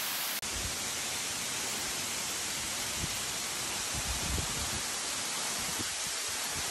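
A steady rushing hiss throughout, with a few soft low bumps around the middle. The sound cuts out for an instant just after the start.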